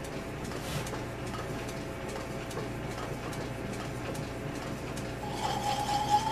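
South Bend lathe running with a steady hum while a drill bit is fed into the bore of a motorcycle handlebar to enlarge it. About five seconds in, a high squeal from the bit cutting starts and gets louder.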